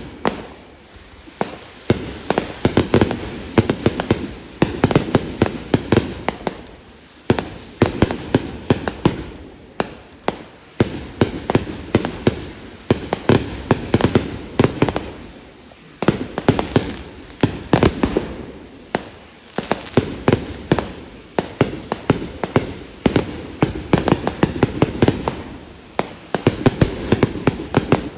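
Vedikettu fireworks going off: dense volleys of sharp bangs and cracks in rapid clusters, one cluster after another every second or two, with a brief lull about ten seconds in.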